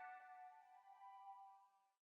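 Near silence: the last faint ringing of a Nokia X2-02 calendar alert tone, several steady tones dying away.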